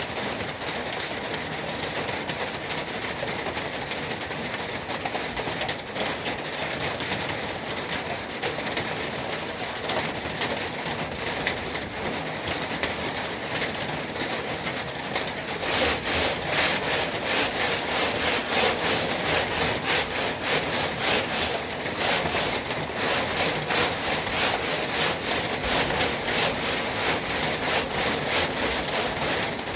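Sandpaper rubbing on a truck toolbox: a steady scratchy sound that becomes louder about halfway through, turning into rhythmic back-and-forth strokes at about two a second.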